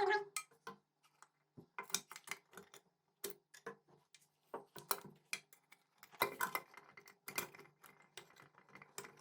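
Irregular small metallic clicks and knocks of scooter kick start parts being worked into place by hand, as the kick start shaft and its return spring are fitted, with a faint steady hum underneath.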